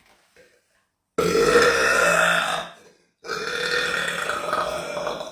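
A woman burping twice, loud and long: the first burp starts about a second in and lasts over a second, and a second, longer burp follows after a short pause.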